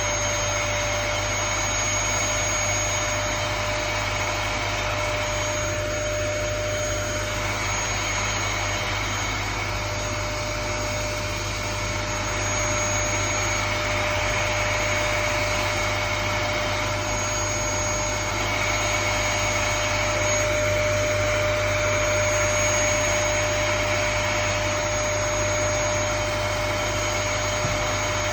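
Vacuum cleaner running steadily, its motor noise carrying a constant whine.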